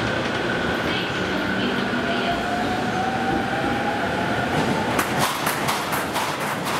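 JR East E231-500 series electric commuter train pulling out and accelerating, with a faint whine rising in pitch. About five seconds in, a quick run of wheel clicks over the rail joints follows.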